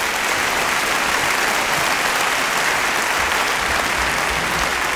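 Large theatre audience applauding steadily: a dense, even clapping.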